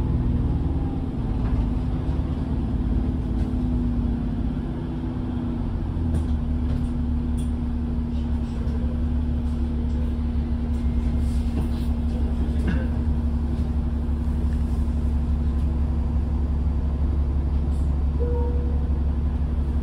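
Inside a double-decker bus on the move: a steady engine drone and road rumble with a held hum. It eases off briefly about five seconds in, then picks back up and runs steady, with a few faint light rattles.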